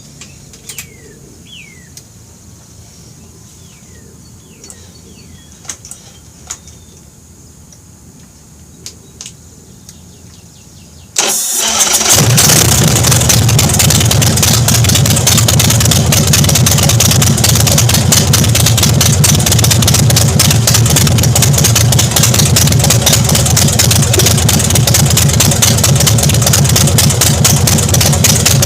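Big Dog motorcycle's V-twin engine cranked and started about eleven seconds in, then running loud and steady at idle, just after its tappet oil screen was cleaned and refitted. Before the start there are only a few faint clicks and chirps.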